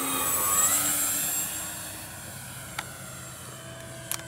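Twin electric motors and propellers of a FlightLine P-38L Lightning RC model whining as it makes a low pass. The sound peaks about half a second in, drops in pitch as it goes by, then fades as the plane climbs away.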